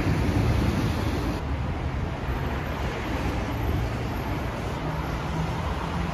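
Road traffic on a city street: a steady rumble of passing cars and a heavy truck.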